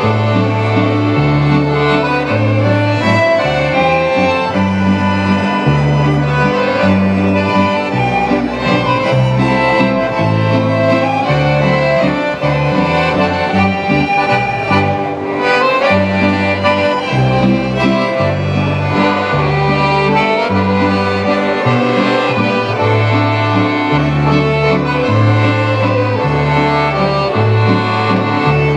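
An accordion and several fiddles play a folk dance tune together. The accordion's bass notes step between pitches about once a second under the fiddle melody.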